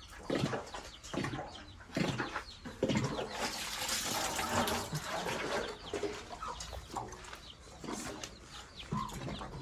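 Chickens clucking while a plastic poultry water drinker is handled and rinsed out, with short knocks and a stretch of running water about midway.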